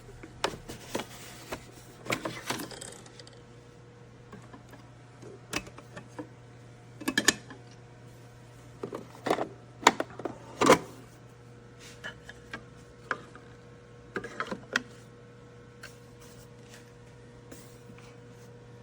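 Nespresso Vertuo Pop capsule coffee machine running through a brew: a steady low hum, with a scattering of sharp clicks and knocks, the loudest about ten seconds in.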